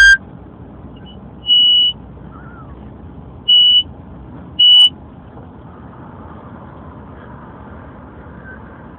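Three short, loud, steady high-pitched beeps from a megaphone's built-in sound effect, over the steady noise of a moving car.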